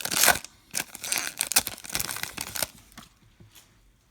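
A trading card pack wrapper being torn open and crinkled, in quick noisy bursts that stop about two and a half seconds in, leaving only a few faint ticks of cards being handled.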